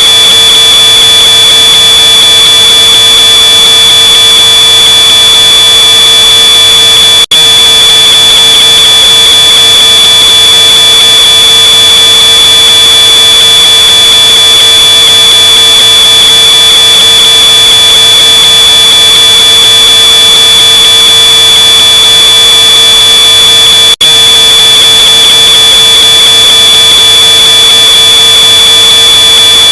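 Smoke alarm sounding one continuous high-pitched tone, boosted until it is harshly distorted. It cuts out for an instant twice.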